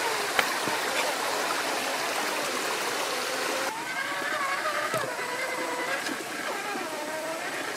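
Stream water running over rocks, with the small electric motor and drivetrain of a Cragsman Pro 1/8-scale RC crawler whining on top, its pitch wandering up and down with the throttle. A sharp knock about half a second in.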